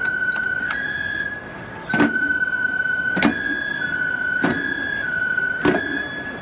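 Live Japanese folk-dance music: a high flute holds long notes, stepping between two or three pitches, over single beats on a small drum worn at the dancer's waist, one strong beat about every second and a quarter with two lighter taps early on. The flute breaks off for half a second about a second and a half in.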